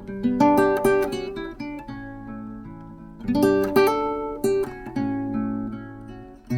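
Background music: acoustic guitar plucked and strummed, with clusters of ringing notes over low sustained bass notes.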